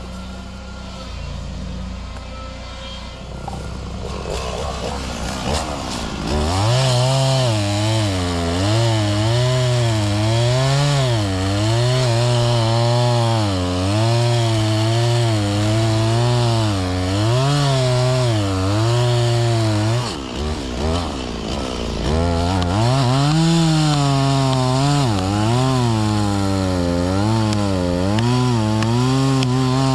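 Small two-stroke chainsaw running low, then from about six seconds in at full throttle making a felling cut into a grevillea trunk. Its pitch sags and recovers every second or two as the chain bites into the wood. It eases off briefly around twenty seconds in, then cuts again.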